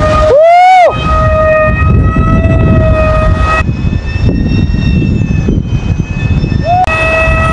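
Whistling of a Vietnamese flute kite's aluminium D25 flutes (sáo) in strong sea wind. A steady pitched tone holds for about three and a half seconds, and a loud note rises and falls about half a second in and again at the end, over wind buffeting the microphone.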